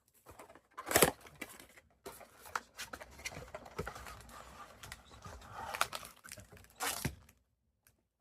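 Upper Deck hockey card packs being torn open, the wrapper ripping and crinkling with cards handled. The loudest rip comes about a second in, and the noise stops near the end.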